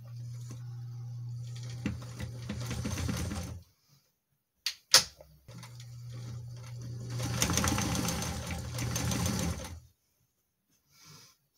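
Electric sewing machine running under foot-pedal control in two runs: the motor hums and the stitching speeds up, then stops. After the first run there are two sharp clicks; the machine starts again and speeds up once more before stopping near the end.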